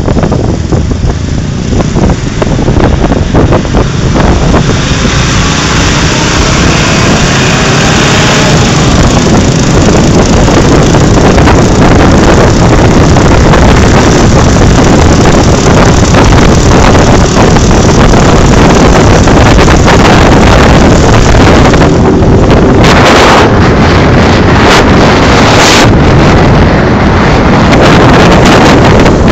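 Loud wind buffeting a phone microphone carried on a moving motorcycle, with the motorcycle's engine running underneath.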